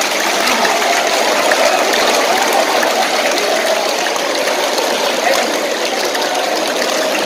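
A large crowd of students clapping steadily with their hands raised above their heads; the applause stops suddenly at the very end.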